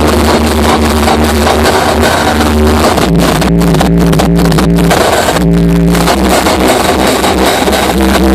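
Loud hardstyle dance music over a club sound system, with long held bass synth notes that shift to a new pitch about three seconds in.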